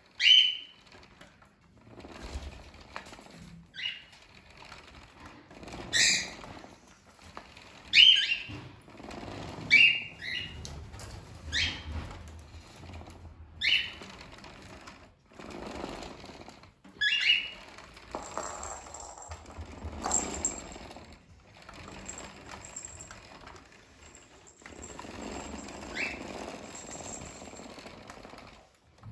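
Cockatiels giving short, sharp rising chirps at irregular intervals, a dozen or so, with softer rustling and scraping between them.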